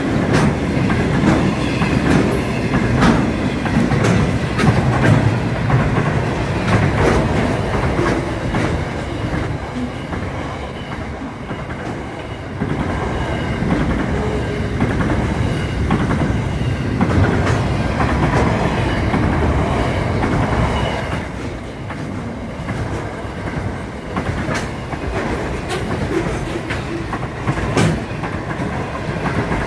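Freight train of container wagons passing close by at speed, its wheels clicking over the rail joints under a continuous rattle and rush of noise.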